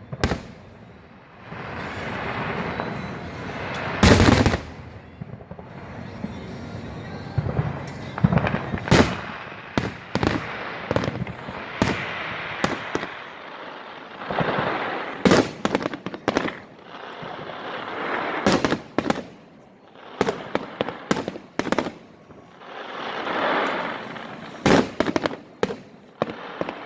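Aerial fireworks display: a heavy bang about four seconds in, then many sharp shell bursts and rapid crackling volleys, with hissing, crackling swells between the bangs.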